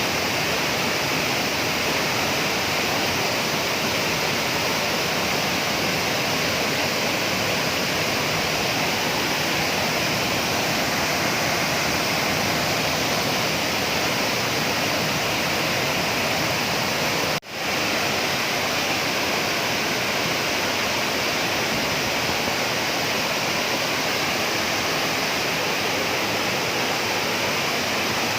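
Waterfall: a steady, loud rush of falling water, which drops out for an instant about two-thirds of the way through.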